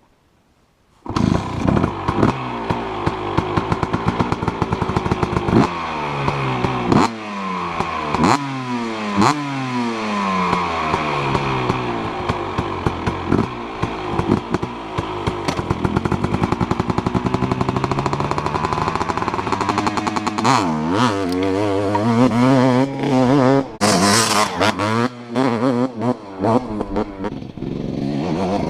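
Dirt bike engine revving hard on a motocross track, its pitch climbing and dropping again and again as the rider works the throttle and gears. Near the end, a short clatter sounds among the engine noise. A second of near silence comes first.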